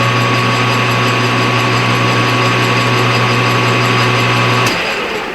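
Metal lathe running steadily with a low hum and a thin steady whine while it takes a light facing cut on a thick coaster blank. About four and a half seconds in the motor is switched off with a click and the sound dies away.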